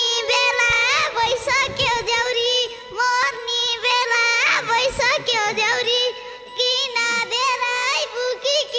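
Live Nepali dohori folk music: a high melody with bends and ornaments over a steady held drone, in short phrases.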